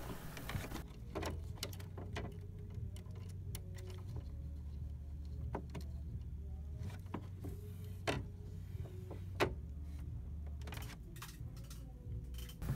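Scattered light plastic clicks and taps as an HP OfficeJet 7612 printhead and its ink tubes are handled and lifted out of the print carriage, over a steady low hum.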